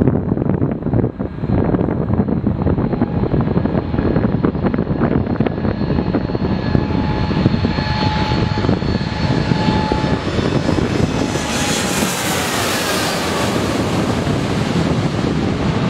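Boeing 787-8 Dreamliner's twin turbofan engines at takeoff power as the jet takes off and climbs out overhead. The sound builds steadily with a whine from the fans, turns hissier as it passes overhead about twelve seconds in, then falls in pitch as it moves away.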